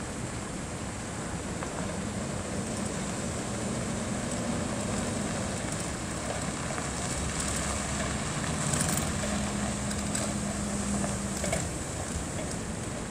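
Ford F-450 service truck's engine running as the truck drives across a gravel lot and passes by, its engine note shifting a few times as it moves, over a steady rushing noise.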